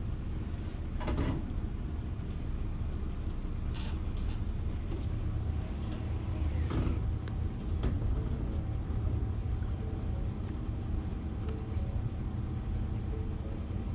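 Pickup truck engine idling steadily, a constant low rumble, with a few brief faint noises over it.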